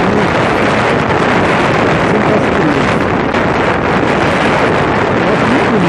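Wind rushing and buffeting over the microphone of a Yamaha Fazer 150 motorcycle cruising at about 95 km/h, with the engine running steadily beneath it.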